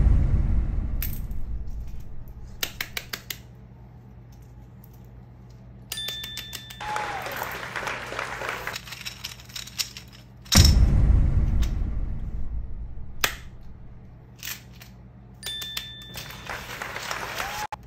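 Added sound effects: a deep boom that fades away at the start and again about ten and a half seconds in, quick runs of clicks, and high ringing dings in between.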